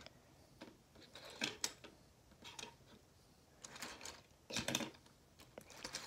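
Faint scattered taps and clicks of small fidget toys being handled and set down on a table, a few light knocks at uneven intervals.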